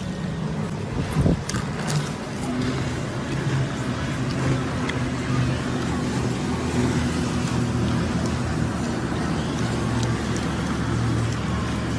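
Steady low motor hum, with a few sharp clicks about a second in.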